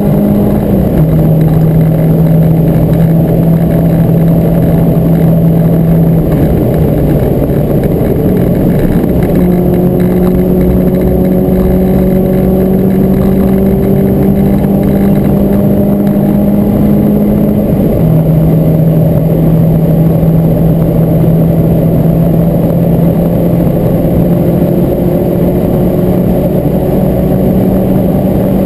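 Renault Clio 172 Cup's 2.0-litre four-cylinder engine pulling hard through the gears at speed, heard from inside the cabin over loud road and tyre noise. The engine note climbs steadily and drops sharply at upshifts about a second in and again about eighteen seconds in, and jumps back up around nine seconds in.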